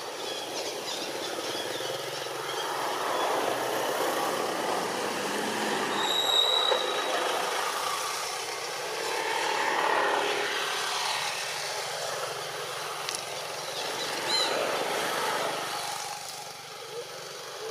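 Outdoor background noise: a steady hiss that slowly swells and fades, with a brief high chirp about six seconds in.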